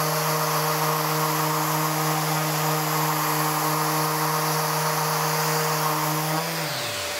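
Maxxt electric random orbital sander running steadily on a wooden board with 120-grit paper. About six and a half seconds in it is switched off, and its hum falls in pitch as it spins down. A dust extractor's steady hiss carries on.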